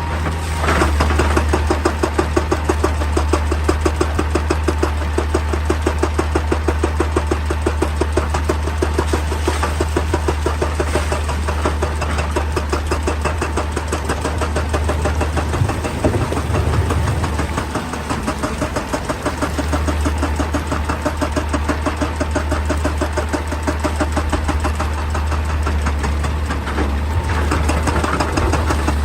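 Heavy excavator's diesel engine running with a fast, even knocking over a steady low drone; the knocking eases for a few seconds just past the middle, then picks up again.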